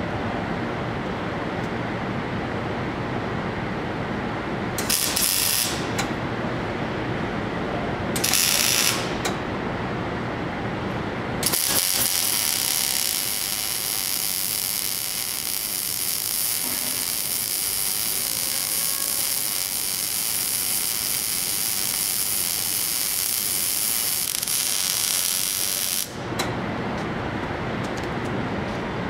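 Arc welding: two short tack welds about five and eight seconds in, then one continuous weld bead of about fifteen seconds, the arc giving a steady crackling sizzle. A constant low hum from the shop runs underneath throughout.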